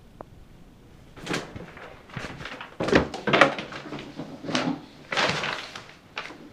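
Kittens scuffling in a bathtub: a plastic shower curtain liner rustling and paws bumping on the tub in irregular bursts, loudest about three seconds in.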